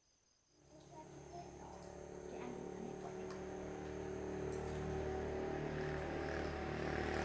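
A motor engine running at a steady pitch, fading in about half a second in and growing steadily louder over several seconds, with insects trilling faintly in the background.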